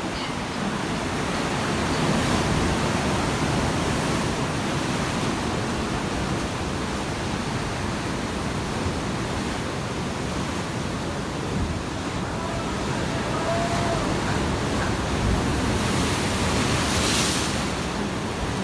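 Sea waves splashing and washing in, a steady rushing surf that swells and eases slowly, with one brighter hissing splash near the end.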